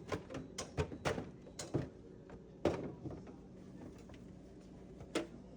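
Irregular sharp clicks and knocks as refrigerator freezer parts are handled and fitted: about eight in the first three seconds, then a single knock near the end.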